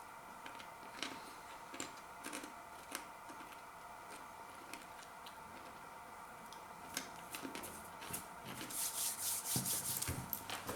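Faint handling and eating sounds of Takis rolled tortilla chips: scattered small clicks, then about two seconds of crisp crackling near the end.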